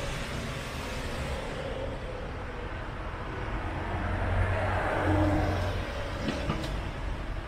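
Road traffic: a steady low rumble of vehicles, with one vehicle passing and growing louder then fading in the middle of the stretch.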